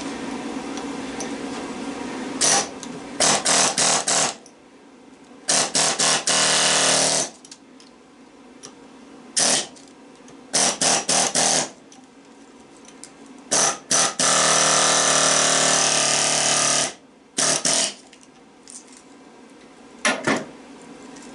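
Pneumatic air chisel hammering through the windings of a transformer clamped in a vise, fired in a string of short bursts and two longer runs of a few seconds each, each starting and stopping abruptly.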